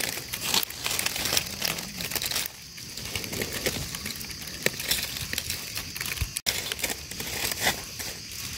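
Dry leaf litter rustling and crackling in dense, irregular crunches, with a brief break about six and a half seconds in.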